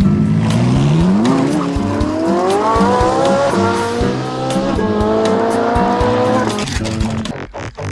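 Race-car engine sound climbing in pitch through the gears, dropping at a shift about three and a half seconds in and climbing again, with tyre squeal and music beneath; it cuts out near the end.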